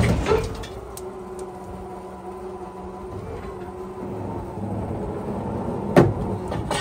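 A heavy steel truck flatbed coming down and sliding onto tires: a loud metal clunk at the start and another about six seconds in, with an engine running steadily in between.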